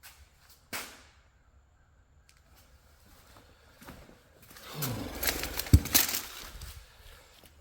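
A single click about a second in, then a few seconds of clattering and knocking with one sharp knock near the middle of it, from parts and tools being handled while a truck's front suspension and axle are put back together.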